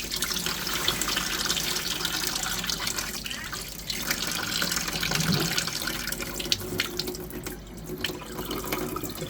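Tap water running into a sink while a salmon is rinsed under it, with occasional knocks and clicks from the fish being handled. The flow eases off briefly near the end.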